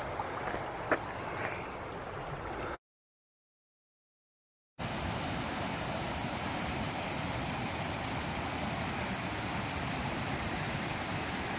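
Mountain creek rushing and splashing over rocks and logs: a steady rush of water, with a couple of faint clicks in the first second. About three seconds in the sound cuts out for two seconds, then the rushing water resumes, evenly.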